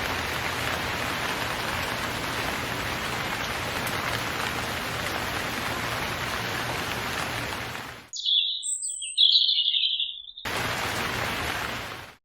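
A steady rain-like hiss that cuts out about eight seconds in. In the silence come two short, loud, high chirps, then the hiss returns briefly and stops abruptly.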